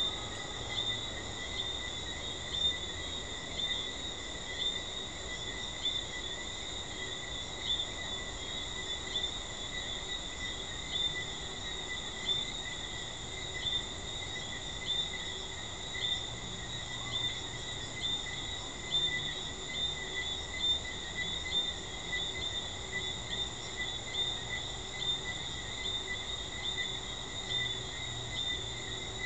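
Night chorus of Jamaican treefrogs: short high chirps repeating about once a second over a steady high-pitched drone.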